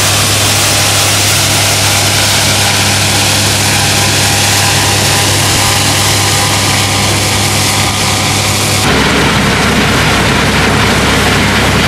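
Combine harvester running while cutting wheat: a steady engine hum under a loud, even rushing of the threshing machinery. The sound changes abruptly about nine seconds in.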